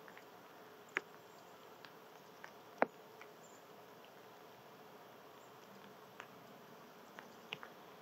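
Gray squirrel eating seeds and nuts from a stump: scattered sharp clicks of chewing and cracking, the loudest about three seconds in, over a faint steady hum.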